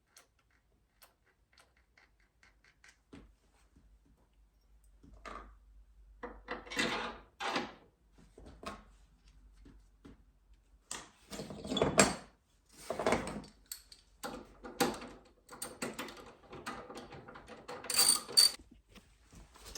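Hand tools and metal footpeg parts being handled during the bolt-up: a few light clicks at first, then a run of irregular rattles and rustles with sharp knocks, the loudest about twelve and eighteen seconds in.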